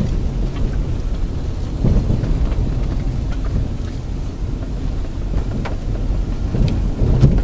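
Road and tyre rumble mixed with the engine of a 2006 Honda Accord automatic, heard from inside the cabin on the move, steady and deep, with a few faint ticks and a slight swell near the end.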